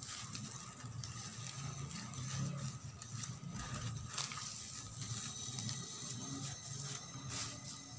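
Dry coconut coir fibres and newspaper rustling and scratching as they are handled and wound with thread, over an uneven low drone.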